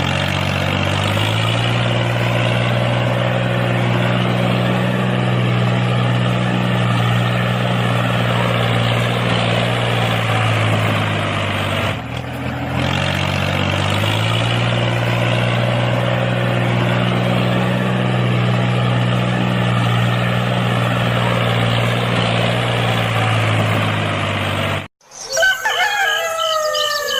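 Tractor engine running steadily; it dies away briefly about halfway through and builds back up, then cuts off suddenly near the end. A rooster crows and clucks in the last two seconds.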